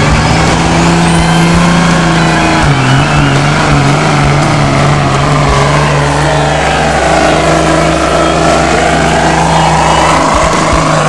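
Dodge Cummins inline-six turbodiesel pickup engine running at full throttle under heavy load while pulling a weight-transfer sled, a loud steady drone. Its pitch drops slightly about three seconds in, and a higher whine dips and rises again in the second half.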